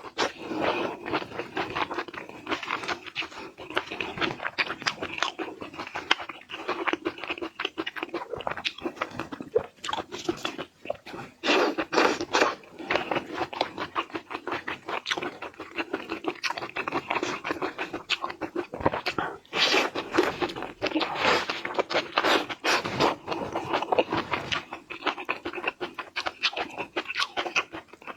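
Close-miked eating sounds: seafood being bitten, crunched and chewed, with dense, irregular crackling clicks throughout.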